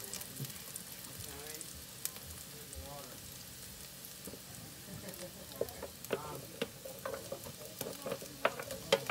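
Sliced red onions sizzling in oil in a cast-iron skillet, a steady hiss. From about halfway through come sharp clacks and taps as carrot slices are scraped off a metal sheet pan into the skillet with a wooden spatula.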